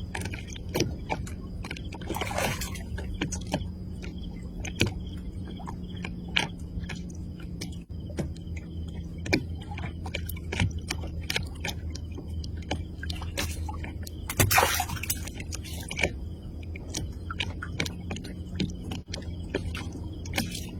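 A steady low mechanical hum under many scattered clicks and scrapes, with two short bursts of rushing noise, one a couple of seconds in and a louder one about two-thirds through.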